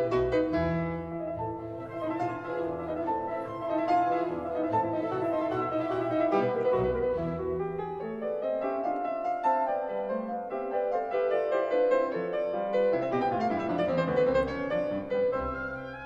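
Background classical music led by piano, with notes moving steadily throughout.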